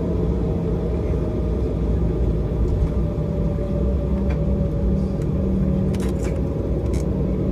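Cabin of an Embraer E190 jet taxiing: a steady low rumble from its General Electric CF34 engines at taxi power and the rolling wheels, with a faint steady whine over it. A few light clicks near the end.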